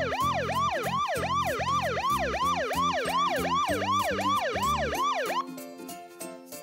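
Siren-like electronic sound of quick falling pitch sweeps, about three a second, over a low hum. It stops about five seconds in and gives way to soft tinkling music.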